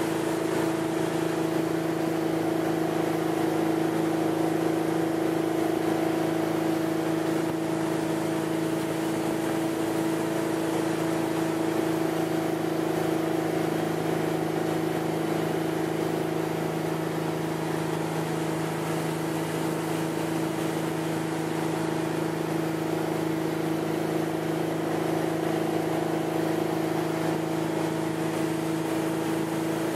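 Tow boat's engine running steadily at towing speed, a constant unchanging drone, over an even rush of water from the wake and spray.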